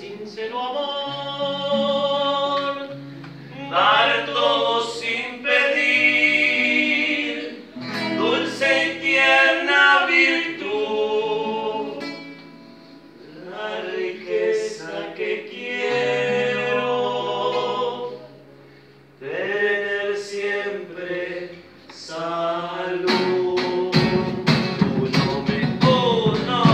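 A group of amateur voices singing a murga song together in phrases with short breaths between them, accompanied by a strummed acoustic guitar, as a rehearsal. Near the end, drum strokes come in under the singing.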